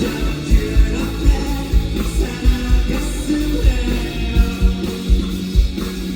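Live rock band music at full loudness: a steady drum beat under bass and guitars.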